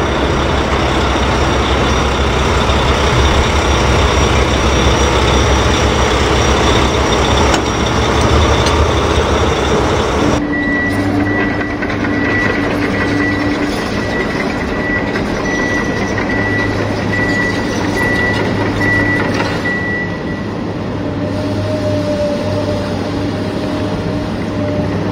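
Heavy vehicle engine running, changing abruptly about ten seconds in to a different engine sound with a high repeating beep that stops about twenty seconds in.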